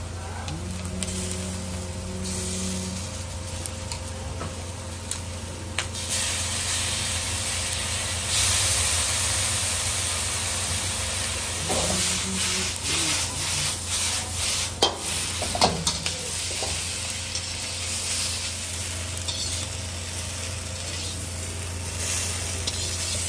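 Squid, baby octopus and prawns with peppers and onions sizzling as they are stir-fried in a hot wok, the sizzle growing louder about eight seconds in. Around the middle there are several sharp knocks and scrapes as the wok is tossed and stirred.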